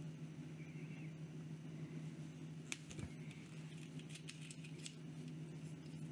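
Faint small clicks and light scraping of a fountain pen handled in the fingers while its piston filler is worked, with one sharper click about three seconds in and a scatter of smaller ones just after. A steady low hum sits underneath.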